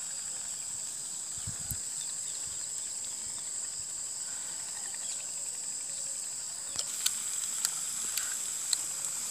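Steady high-pitched buzzing of insects, with a few faint sharp clicks in the last couple of seconds.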